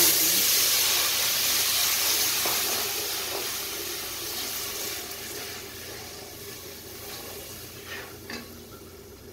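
Semolina roasted in hot ghee hissing and sizzling loudly as a cup of water is poured in. The hiss fades gradually over several seconds as the mixture is stirred, with a couple of light knocks near the end.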